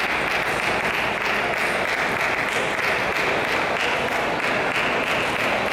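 Steady din of a busy table tennis hall: a continuous wash of crowd chatter and many scattered clicks of ping-pong balls on bats and tables from games in play.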